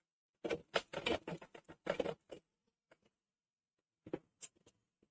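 Cloth rustling and scraping as thin fabric is flipped and smoothed by hand on a sewing-machine table, in two bursts: a longer one of about two seconds, then a short one about four seconds in.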